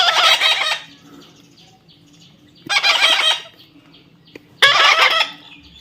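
Parrot squawking: three loud, harsh calls, one at the start, one about three seconds in and one near the end.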